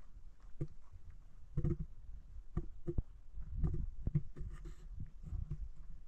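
Irregular light knocks and clicks with soft thuds and rustling, the sound of things being handled and moved about in a small room.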